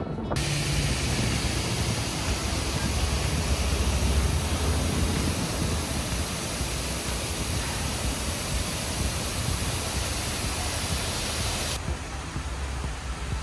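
Man-made waterfall cascading down a rock face: a steady, full rush of falling water with a low rumble underneath. Near the end the hiss falls away, leaving a duller rush.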